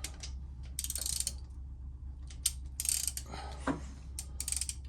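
Hand socket ratchet clicking in four short runs, with a few metallic ticks, as fasteners and parts on a motorcycle's cam chest are worked; a steady low hum underneath.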